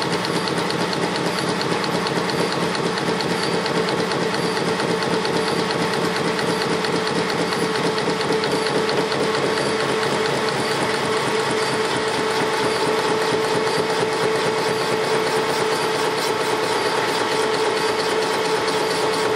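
Metal lathe running steadily while machining a BMW motorcycle connecting rod held in the chuck: a constant, even hum with one strong mid-pitched tone over a fine, fast mechanical rattle.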